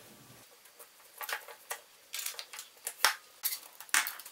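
Bolted plywood linkage pieces clicking and knocking together as they are handled and fitted onto the lamp arm: an uneven scatter of short, sharp clacks, the sharpest two about three and four seconds in.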